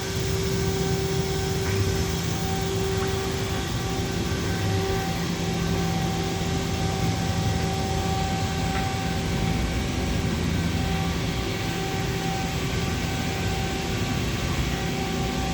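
2011 Mazak QTS-350 CNC turning center running under power: a steady mechanical hum with a few steady whining tones, holding an even level throughout.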